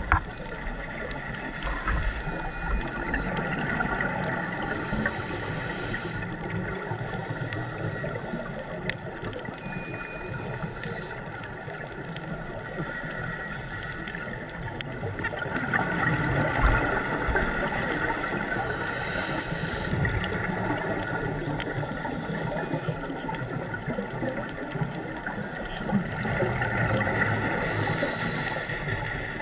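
Underwater sound picked up by a diving camera at depth: a scuba diver's exhaled bubbles gurgling and rushing, swelling louder now and then, over a steady hiss with scattered sharp clicks.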